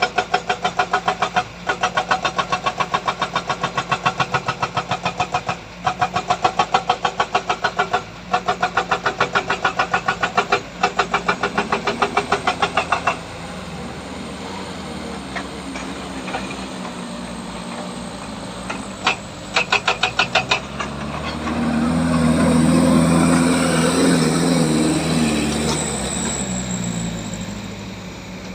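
Heavy diesel machinery working on a steep dirt track. First comes a loud, rapid rhythmic pulsing of about four beats a second, broken by short gaps. It gives way to a quieter steady engine sound, and about two-thirds of the way in an engine revs up louder for a few seconds before easing off.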